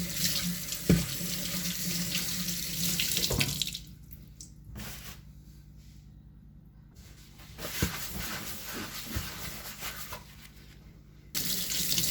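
Kitchen tap running into a sink, a steady rush of water. It falls away to a faint trickle for a few seconds in the middle, comes back, and turns up sharply again near the end.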